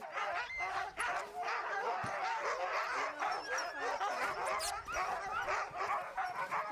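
A team of sled huskies barking, yipping and whining all at once in a continuous, overlapping chorus. This is typical of sled dogs eager to set off on a run.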